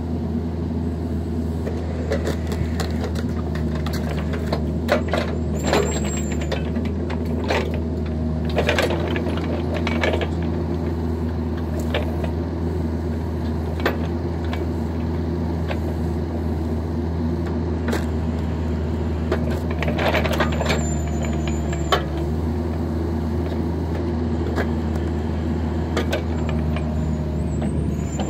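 Mini excavator's diesel engine running steadily under hydraulic load as it works a log-splitter attachment, with clusters of sharp cracks and knocks of wood several times, busiest a few seconds in and again about two-thirds through. A short high squeal comes twice.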